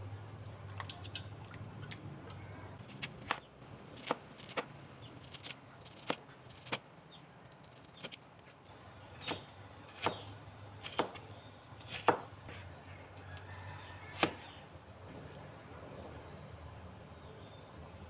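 Kitchen knife chopping cucumber on a cutting board: about a dozen sharp, unevenly spaced knocks, the loudest about twelve seconds in, over a steady low hum.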